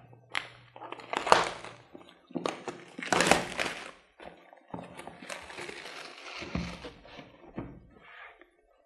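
Clear plastic shrink wrap being torn and peeled off a cardboard product box, crinkling and crackling in a run of bursts, the loudest about one and three seconds in.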